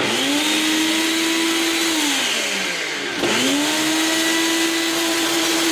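Ninja personal blender motor pulsing through ice cream and broken Oreo cookies: it starts up, winds down about two seconds in, then kicks back on just after three seconds and runs steadily.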